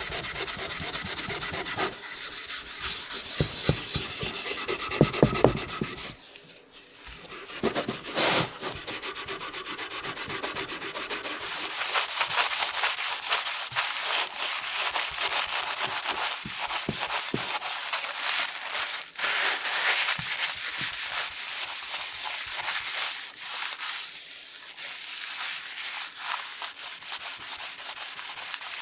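Rubbing strokes on the wooden body of an 1890s Edward Preston & Sons wooden jack plane: steel wool scrubbing the stained wood, then a cloth wiping it down after a short lull about six seconds in.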